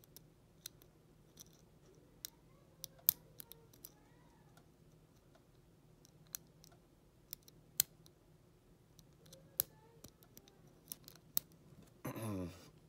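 Lock pick and tension wrench working the pin stack of an Ace five-pin closed-shackle padlock: sparse, irregular small metallic clicks, a few sharper than the rest. A brief low voiced hum near the end.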